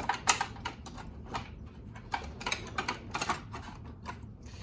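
Loose metal hand tools clinking and clattering as they are shuffled around in a tool chest drawer, a quick irregular run of sharp clicks.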